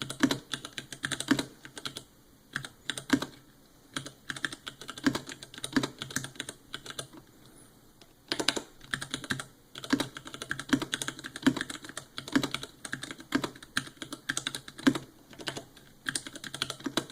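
Typing on a custom 60% mechanical keyboard fitted with stock Cherry MX Clear switches: an irregular run of key clacks that stops for about a second some seven seconds in, then carries on.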